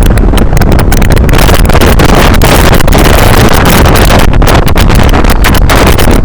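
Loud wind buffeting the microphone, a heavy low rumble with constant crackling, from riding on the roof of a moving bus.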